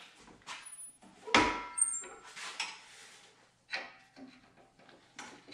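Several metal knocks and clanks from a manual tube bender being set up by hand. The loudest comes about a second and a half in and rings briefly like struck steel.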